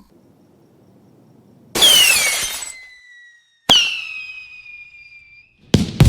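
Cartoon sound effects: two sudden noisy hits about two seconds apart, each trailing off into a high ringing tone that slides downward, then a quick run of bangs near the end.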